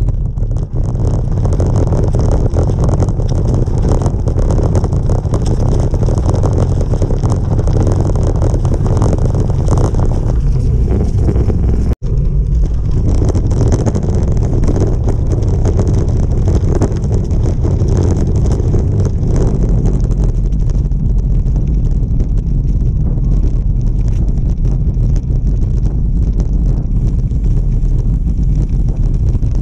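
Steady, loud wind noise buffeting the microphone while riding a road bike, a dense low rumble with no let-up, broken by a sudden brief cut-out about twelve seconds in.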